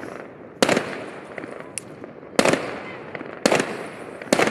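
Aerial fireworks shells bursting overhead: four loud bangs at uneven gaps of one to two seconds, each trailing off in echo, with small crackles between them.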